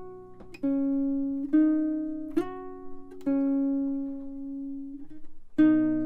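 Background music: a guitar picking single notes, one roughly every second, then a short pause before the next note near the end.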